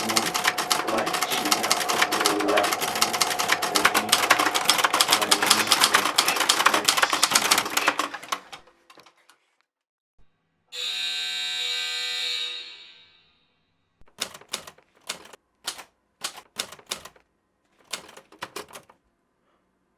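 Typewriter keys clattering in a fast, dense run for about eight seconds before trailing off. After a pause comes a held pitched tone lasting about two seconds, then a dozen or so separate, unevenly spaced keystrokes.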